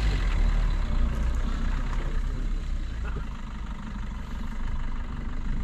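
Diesel Maruti Brezza SUV's engine running, heard from inside the car as a steady low rumble.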